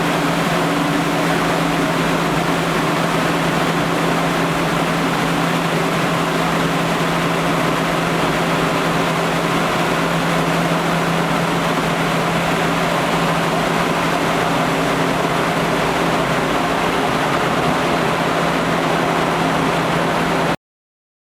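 Industrial fan running steadily: a constant rush of air with a steady low hum, cutting off abruptly near the end.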